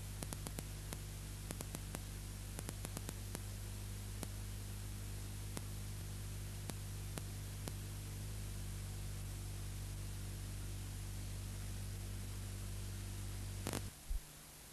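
Hiss and a steady low mains hum from an old analog videotape sound track, with scattered clicks in the first few seconds. Near the end comes a short crackling burst, then the hum cuts off, leaving only the fainter hiss of blank tape.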